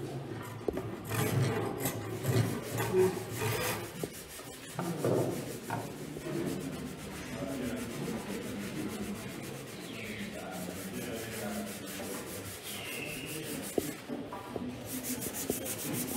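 A wooden oar shaft being shaped and smoothed by hand: repeated rasping and rubbing strokes of tool and abrasive on wood, in a quick even rhythm through the middle and turning into a brighter, hissier rubbing near the end.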